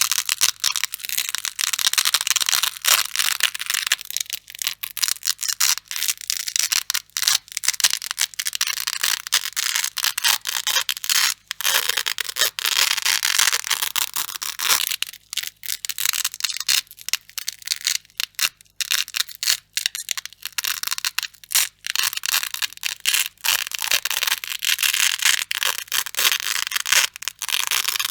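Crunchy Velcro (hook-and-loop fastener) being ripped apart over and over: a dense, rough tearing sound in long runs broken by brief pauses.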